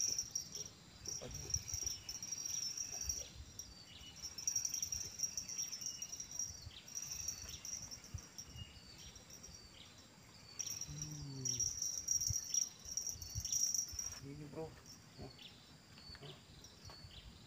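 Insects chirping in a high, pulsing drone, with a run of short repeated chirps about once a second. A brief low voice-like sound comes about two-thirds of the way in and again a few seconds later.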